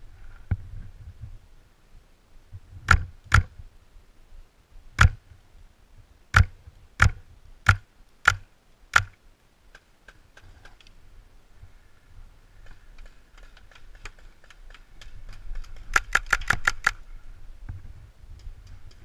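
Paintball marker firing: about eight single shots spaced a half-second to a second and a half apart. Near the end comes a fast burst of about eight shots in roughly a second, after scattered fainter shots.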